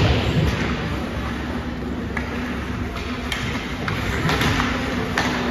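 Ice hockey game sound in a rink: a sharp knock right at the start and several lighter clicks of sticks and puck, over a steady low hum and a haze of skate and arena noise.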